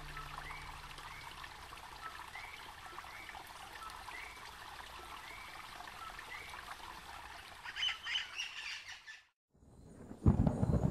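Short chirps, about one a second, over a faint trickling hiss, with a busier flurry of chirps a little before the end. After a brief drop to silence, a loud rumble of thunder breaks in about ten seconds in.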